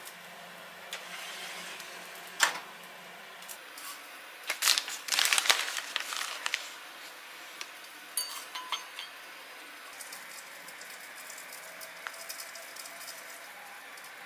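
Kitchenware being handled: a sharp knock about two and a half seconds in, then a burst of clattering and clinking lasting a couple of seconds, and a few lighter clicks later, over a faint steady hiss.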